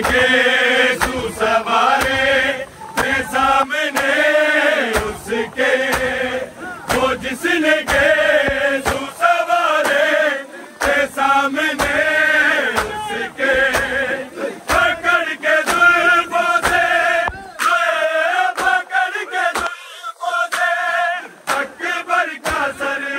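A noha chanted by male voices, with sharp hand-on-bare-chest slaps (matam) beating in a steady rhythm through the chant.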